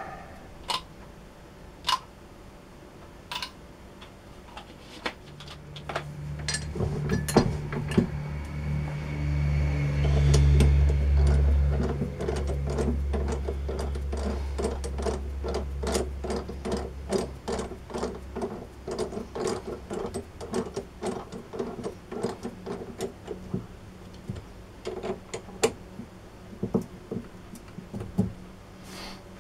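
Small metal lathe starting up and running, with a steady low hum and a regular clicking of two or three ticks a second. The hum fades out about eighteen seconds in while the clicking carries on.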